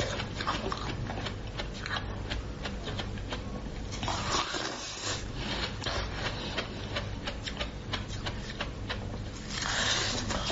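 Close-miked eating sounds: rapid crackling and crunching clicks of food being bitten and chewed, with a couple of brief louder, noisier bursts about four seconds in and near the end.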